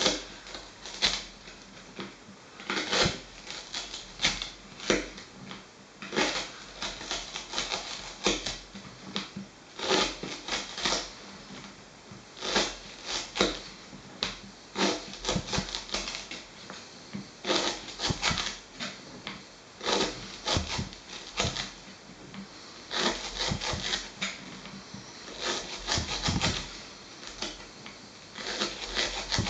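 Irregular sharp clicks and knocks, several in quick clusters, in a small room.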